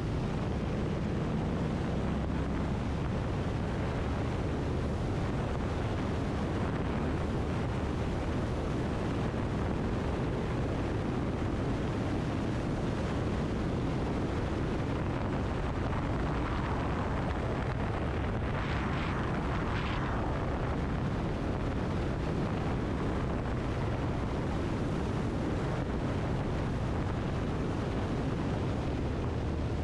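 Wind rushing over the microphone mixed with the 2022 Indian Chief's Thunderstroke 116 V-twin running steadily at highway speed, about 70 to 85 mph. About two-thirds of the way through, a brief higher-pitched rushing sound rises and fades.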